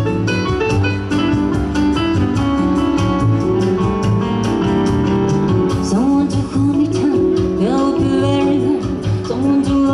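Live jazz band playing a song, with guitar and other instruments; a singer's voice comes in about halfway through.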